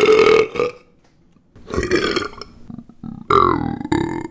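A man's loud burps, three of them about a second each with short pauses between, the last one dropping in pitch.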